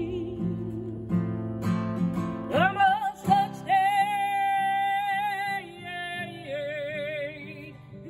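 Woman singing to her own strummed acoustic guitar. About two and a half seconds in, her voice slides up into one long held note, then steps down to lower notes near the end.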